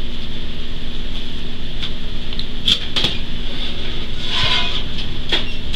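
Glass marbles rolling across a hard floor with a steady rumble, and a few sharp clicks as they strike something.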